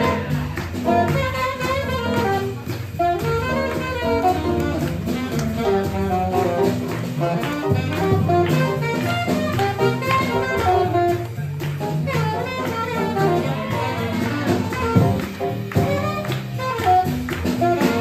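Live small swing jazz band playing an up-tempo tune, with piano among the instruments.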